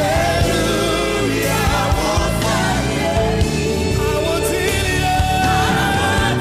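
Gospel praise music: voices singing over a full band with bass and drums.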